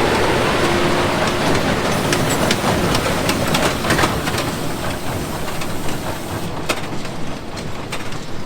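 John Deere 6250R tractor's six-cylinder engine running under load while it pulls a Krone Big Pack 890 square baler that is baling hay. The steady machine noise carries a run of sharp clacks and knocks.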